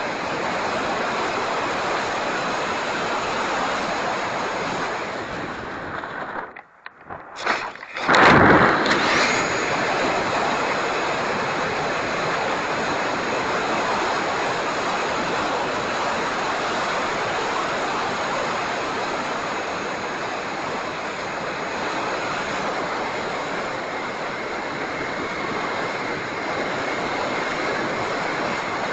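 Steady wind rushing over the microphone, with a faint thin high whine from an electric ducted-fan RC jet. The sound drops away briefly about six seconds in, then comes back with a loud rush of air about eight seconds in.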